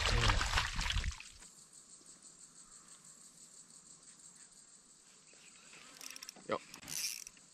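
Loud splashing and handling noise for about the first second as a fish is brought up in a landing net beside the kayak. It then drops to quiet bush ambience with insects chirping, and a few short clicks and a brief swish come near the end.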